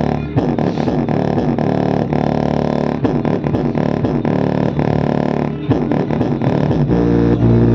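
A bass-boosted electronic song played loud through a homemade 4-inch subwoofer in a small wooden enclosure, for a sound test. It has a steady beat of low thumps that drop in pitch, about two a second. Near the end, held bass notes come in.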